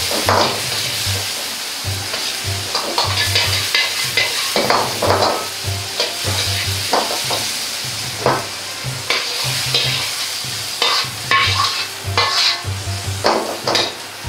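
Diced tomato sizzling in a hot wok while a steel ladle stirs and scrapes it, with repeated sharp clanks of the ladle against the wok over a steady frying hiss.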